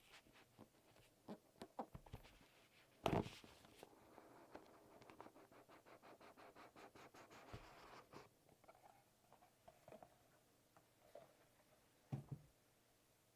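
Packaging being handled: a thump about three seconds in, then scratching with a rapid run of small ticks for about four seconds, and a few light knocks after that.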